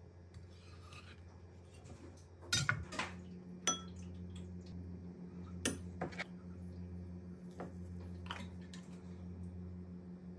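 Metal spoon clinking and scraping against a small bowl while stirring a seasoning mixture. Sharp clinks come at about two and a half seconds in, then around four, six and eight seconds, over a low steady hum.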